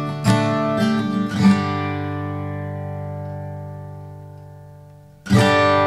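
Background music on acoustic guitar: a few plucked notes, then a chord left ringing and fading away for about four seconds, before the strumming starts again near the end.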